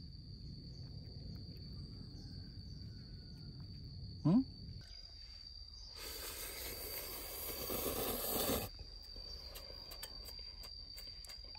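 A man slurping noodles for about three seconds, the sound growing louder and then stopping abruptly. A steady high insect trill runs underneath.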